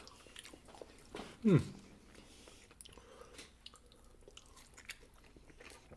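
Close-up chewing and biting: soft wet mouth clicks and crunches throughout, with one brief vocal sound falling in pitch about a second and a half in.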